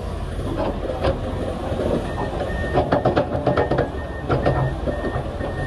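Komatsu PC500LC excavator's diesel engine running steadily as the boom and bucket work, with clusters of clanking and rattling about three and four seconds in. A short beep repeats every half second or so from about two seconds in.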